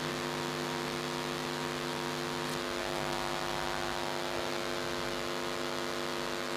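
Steady electrical mains hum, a buzzy tone of several evenly spaced pitches over a faint hiss, from the recording's sound system during a pause in speech.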